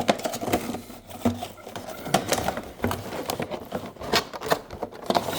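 The packaging of a USB charger plug being handled and opened by hand: irregular crinkles, clicks and taps.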